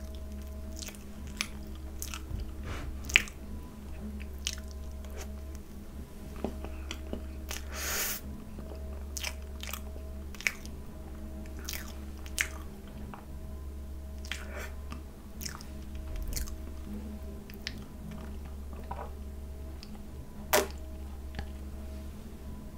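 Close-miked chewing and wet lip smacks from a mouthful of soft layered cappuccino fresh-cream cake, with short clicks scattered throughout over a steady low hum.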